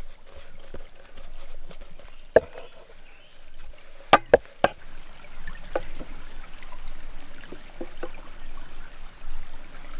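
Stream water running and trickling, with a few sharp taps from dough work on a wooden board: one about two seconds in, then three in quick succession about four seconds in.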